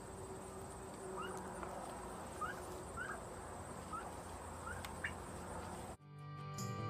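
Faint outdoor background with about six short, quick chirps spread through it. Near the end it cuts out and guitar music starts.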